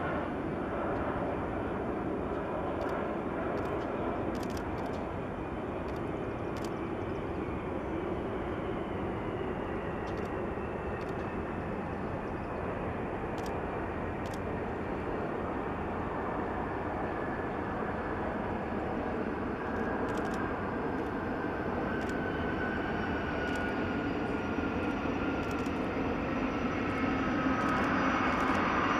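Boeing 747SP's four jet engines running steadily through touchdown and the landing roll. A whine slowly falls in pitch and grows louder near the end as the jet passes close by.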